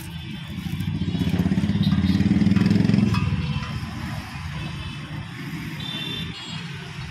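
A motorcycle engine passing close by on the street, with a low rumble that grows louder for a couple of seconds and then fades away.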